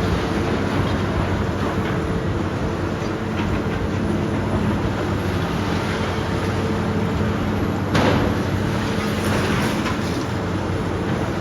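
Demolition excavator's diesel engine running steadily, with a sudden crash of breaking debris about eight seconds in.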